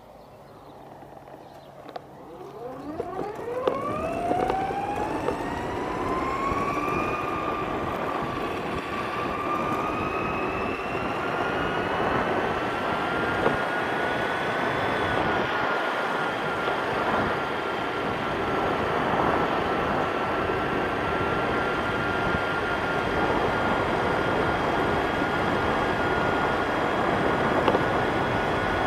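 DIY electric skateboard's motor whining, rising steeply in pitch as the board accelerates from a standstill over the first several seconds, then holding a steady high whine at speed. Underneath is a steady rush of wheel and wind noise that grows louder as the speed builds.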